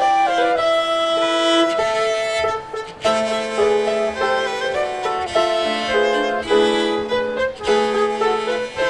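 A chamber quartet of flute, violin, cello and piano playing a Christmas piece together, melody over held notes. The phrase breaks off briefly about three seconds in, then the ensemble comes back in with a low held note underneath.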